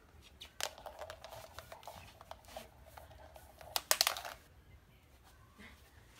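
Small hollow plastic toy ball rolling across a hard wooden floor, with a steady hollow tone and many small clicks. A cluster of louder knocks comes about four seconds in, and then the rolling stops.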